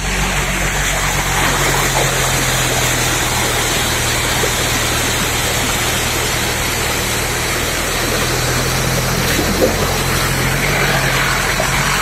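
River rapids rushing over rocks: a steady, even rush of water, with a low steady hum underneath.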